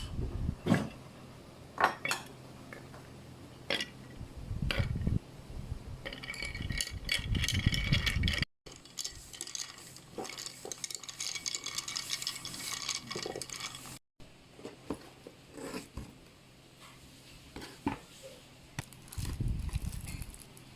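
Kitchen dishes and utensils clinking and knocking, with a stretch of steady hiss in the middle; the sound breaks off abruptly twice.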